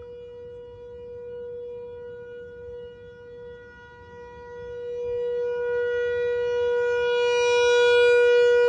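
Outdoor tornado warning siren sounding one steady, unwavering tone, growing steadily louder from about halfway through and peaking near the end.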